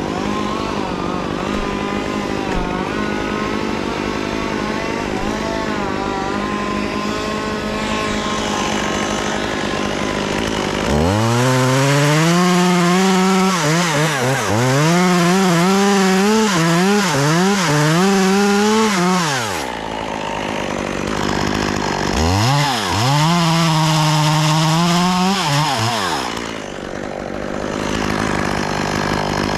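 Chainsaw running at low speed, then revved up about a third of the way in and cutting into maple wood for about eight seconds, its pitch dipping and recovering under load. It drops back, then revs and cuts again briefly near the end.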